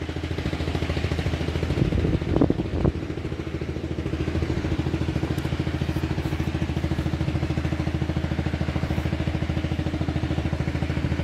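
Small river motorboat's engine running steadily with an even, rapid chugging beat. A couple of brief louder knocks come about two and a half seconds in.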